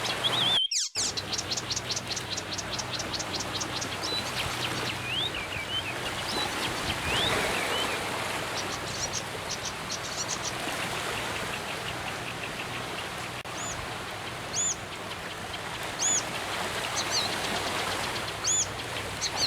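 Wild birds calling over a steady background of insect chirring. About a second in comes a rapid row of short high notes; scattered whistled phrases follow, and a few short arched whistles come near the end. There is a brief dropout in the sound less than a second in.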